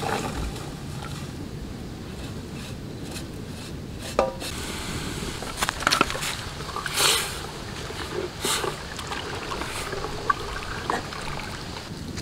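Water sloshing in an aluminium pot as it is stirred with a coconut-shell ladle to dissolve palm jaggery, with scattered short knocks and clicks.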